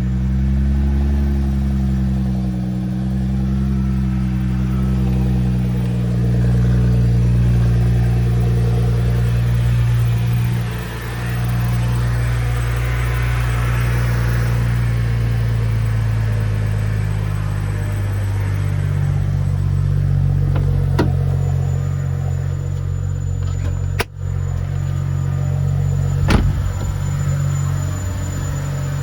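BMW E92 335i's turbocharged straight-six idling just after starting, its revs falling to a steady idle in the first couple of seconds, with a thin steady high whistle above it. The whistle is the kind that a faulty small section of hose near the PCV/valve cover causes. A few sharp clicks sound near the end.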